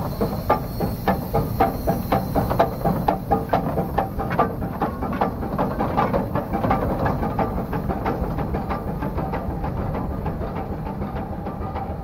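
Achenseebahn rack steam locomotive No. 4, a two-cylinder saturated-steam engine, pulling away: a regular chuff of exhaust beats over hissing steam from the cylinders. The beats quicken and fade as it draws off down the line.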